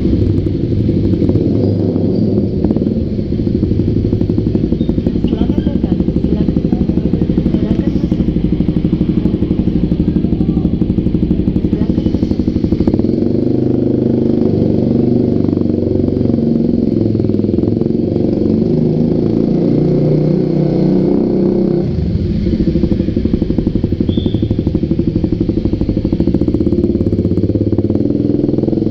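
Kawasaki D-Tracker's single-cylinder engine running at low revs through an aftermarket Muscov exhaust as the bike is ridden slowly, with a steady exhaust note echoing inside a concrete parking garage.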